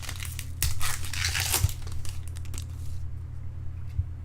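Trading cards and their crinkly plastic or foil packaging being handled, with an irregular rustling and crinkling, busiest in the first half, over a steady low electrical hum.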